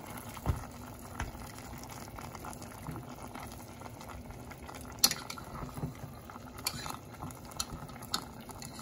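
Chicken pieces simmering and bubbling in a small saucepan on a gas burner, with scattered clicks and knocks of chopsticks stirring and poking the pieces; the sharpest knock comes about five seconds in.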